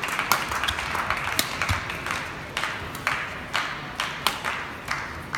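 Badminton rally: sharp racket strikes on the shuttlecock about once a second, over steady crowd noise.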